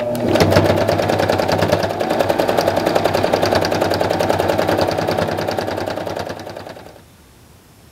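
Electric sewing machine running at a steady speed, a fast even patter of needle strokes as it stitches lace trim onto a pillowcase. It fades and stops about a second before the end.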